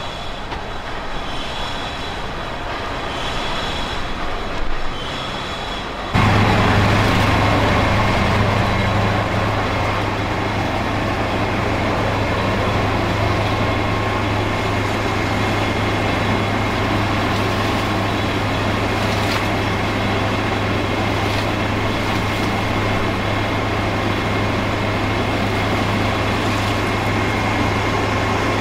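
Well-drilling rig's engine running steadily while it pumps water out of the new well. About six seconds in it jumps suddenly louder into an even, deep drone that holds steady.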